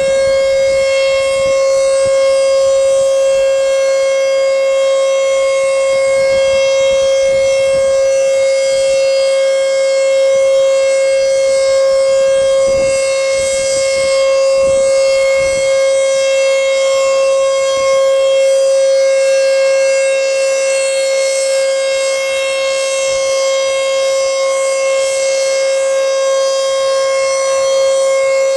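ASC T-121 electromechanical tornado siren sounding its steady alert signal: one continuous tone held at constant pitch, loud and unbroken, with strong overtones.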